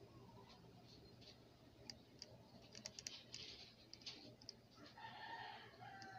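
Near silence: faint room tone with scattered light clicks and ticks, and a faint, brief pitched sound about five seconds in.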